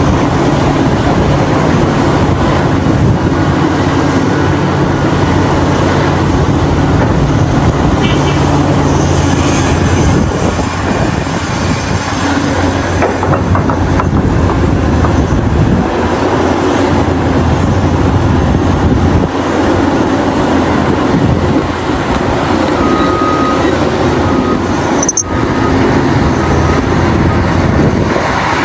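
Heavy machinery noise from a CAT 6015B hydraulic mining excavator at work: a steady low engine drone for about the first ten seconds, then a rougher, noisier rumble of the machine running.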